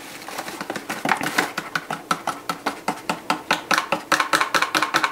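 A single-serve Keto Chow powder packet being shaken and squeezed upside down over a glass jar to empty it: a rapid run of crisp crinkling taps, about four to six a second, quickening toward the end.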